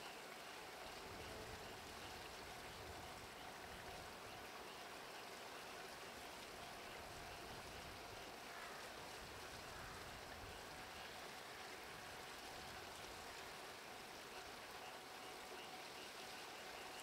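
Faint, steady outdoor hiss, even and water-like.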